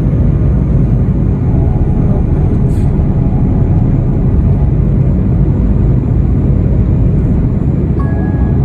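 Airplane during landing: a steady, loud, low rumble of engines and rushing air.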